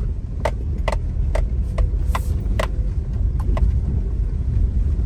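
Car interior rumble as the car rolls slowly over a stone-paved courtyard. A run of short, sharp clicks sounds about twice a second through the first few seconds.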